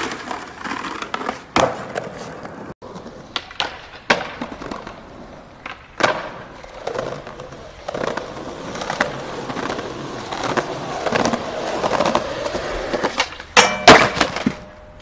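Skateboard wheels rolling on concrete, broken by the sharp pops, slaps and landings of street tricks. Near the end comes the loudest part: the board grinding a metal handrail, with metallic ringing.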